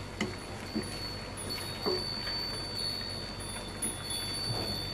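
Wooden spatula stirring prawns through a thick simmering sauce in a non-stick pan, with a few soft scrapes. Over it runs a steady high-pitched tone.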